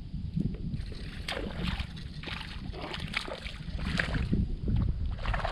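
Water splashing and sloshing around a kayak in irregular small bursts, over a steady low rumble of wind on the microphone.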